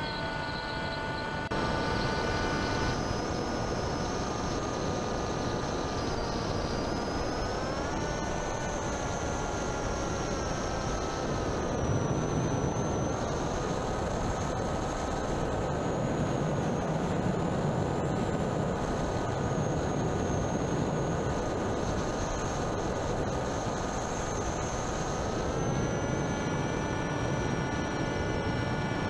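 Motor and propeller of an FPV model aircraft heard through its onboard camera: a steady whine over a rush of air. The pitch rises with throttle about a quarter of the way in and again near the end.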